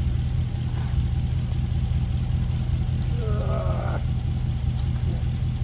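An engine idling steadily with a low, even hum. A brief wavering higher sound comes about three seconds in.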